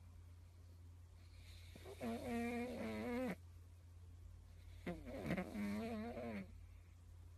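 Pug snoring: two drawn-out, wavering snores about three seconds apart, the first about two seconds in, over a low steady hum.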